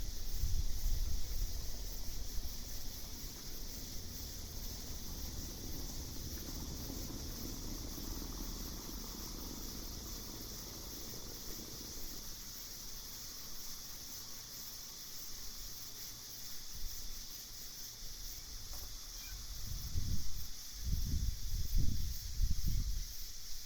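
Night insect chorus, a steady high-pitched chirring that never lets up. Low gusts of wind rumble near the start and again about twenty seconds in.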